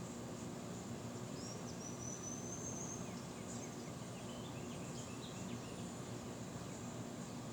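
Steady wind noise, with a faint thin high whistle and a few faint high chirps about halfway through.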